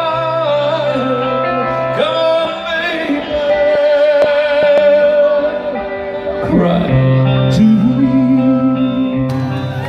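Live concert music: a man singing long, held notes into a microphone over instrumental backing.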